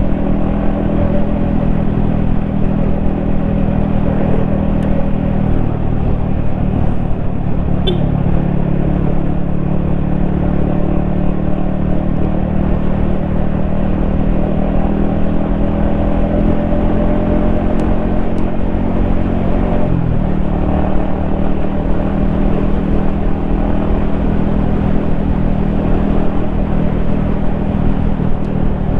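Yamaha XSR155's single-cylinder engine running steadily under way, heard from the rider's position. The engine note dips briefly about two-thirds through, then picks up again.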